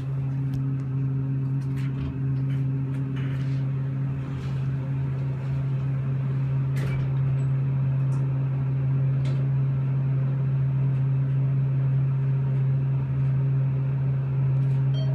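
Elevator car travelling down: a steady low hum, with a few faint clicks and knocks.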